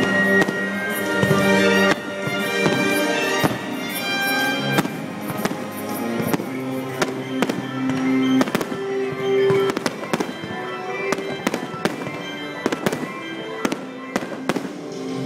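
Fireworks shells bursting in a rapid string of sharp cracks and bangs over loud accompanying show music with long held notes.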